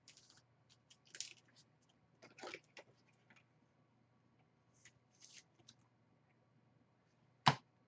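Trading cards being handled on a table: short, light rustles and slides of cards, with a sharp knock about seven and a half seconds in.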